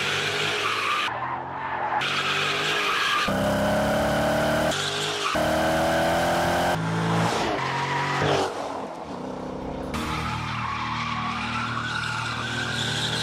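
Dodge Challenger SRT8 392's 6.4-litre HEMI V8 revving hard with tires squealing through a burnout and drifts. The engine note rises and falls, and jumps abruptly every second or two where short clips are cut together.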